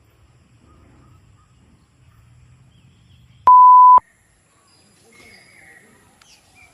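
A single loud electronic beep: one steady pure tone lasting about half a second, halfway through. Faint bird chirps follow near the end.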